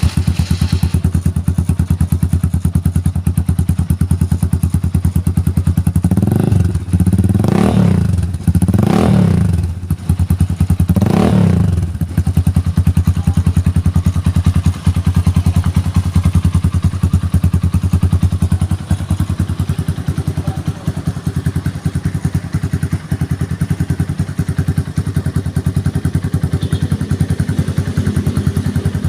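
Sigma 250 motorcycle idling through an aftermarket 'daing' exhaust pipe, with four quick throttle blips in a row about six to twelve seconds in, then settling back to a steady idle.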